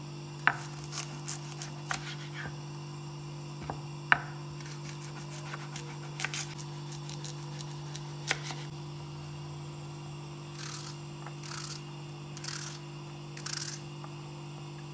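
Kitchen knife slicing an onion on a cutting board: scattered sharp taps of the blade on the board, then four slicing strokes about a second apart near the end. A steady low hum runs underneath.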